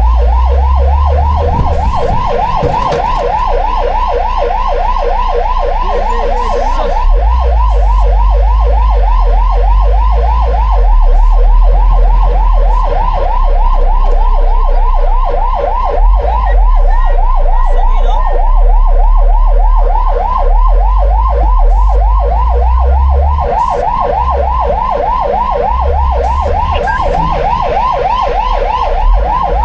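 Fire truck siren sounding continuously in a rapid yelp, its pitch sweeping up and down several times a second, over a heavy low rumble.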